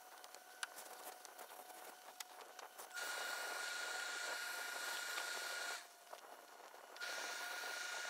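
Steady hiss from a tailor's steam pressing equipment, with a thin steady tone in it; it comes on suddenly about three seconds in, cuts off just before six seconds and starts again about a second later. Before it, faint rustling and light clicks of hands smoothing wool suit cloth on the table.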